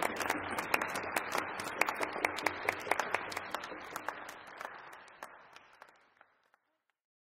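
Audience and players applauding: many hands clapping irregularly, fading away over the last few seconds.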